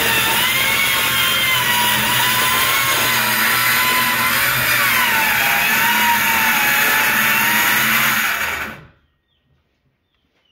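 Corded circular saw running and cutting through a plywood sheet as it is pushed along a track rail: a loud steady motor whine that wavers up and down in pitch over the noise of the blade in the wood. It cuts off suddenly about nine seconds in.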